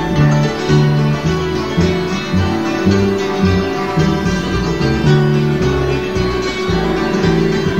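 Instrumental music with plucked acoustic guitar over a moving bass line, no singing.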